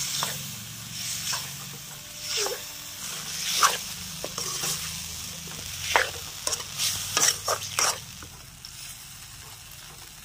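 A steel spoon stirring and scraping flat beans and tomatoes through fried masala in a metal kadhai, the curry sizzling in the oil. The scrapes come at irregular intervals about a second apart and stop about eight seconds in.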